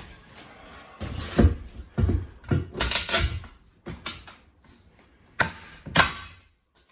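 Interior demolition: irregular knocks, bangs and cracks as wood or wall material is pried and torn loose, about eight hits over several seconds.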